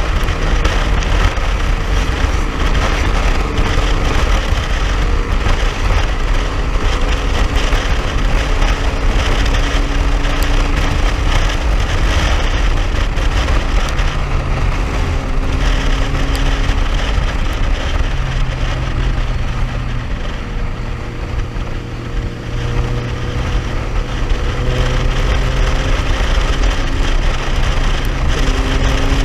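Suzuki Raider 150 motorcycle engine running at a steady cruise, its pitch drifting slowly up and down, under heavy wind buffeting on the microphone; the sound dips briefly about two-thirds of the way through.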